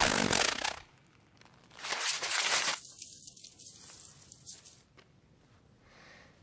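Two loud bursts of noise with no clear pitch: one right at the start, lasting under a second, and a second about two seconds in that dies away over the next two seconds.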